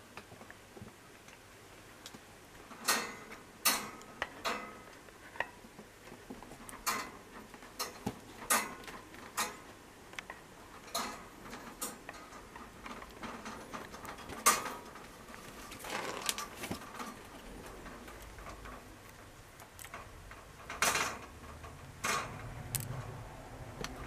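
Irregular light clicks, taps and knocks, scattered and sometimes in quick clusters: kittens moving about inside a wire pet pen, their paws and bodies knocking against the wire panels and the things on its floor.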